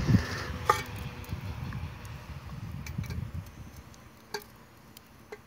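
A few light metallic clinks and knocks as a kettle is hung on a camp-fire tripod. One clink about a second in rings briefly, and two more come near the end.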